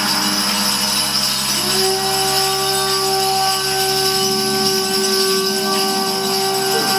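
Ritual staff hung with jingles and rattles, shaken continuously so that it jingles, over a held droning tone that bends in pitch about one and a half seconds in and again near the end.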